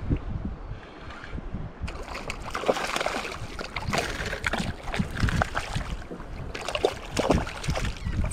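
Wind rumbling on the microphone. From about two seconds in, irregular splashing and sloshing of water joins it.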